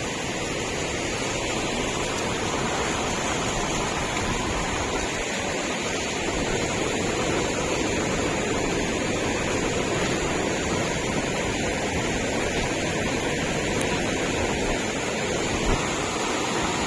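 Steady rushing of a river in flood, its water running high and fast.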